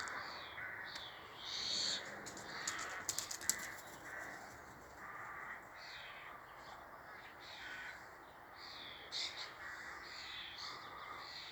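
Birds calling in alarm at a red kite circling overhead, many short high calls repeating and overlapping. A few sharp clicks about three seconds in.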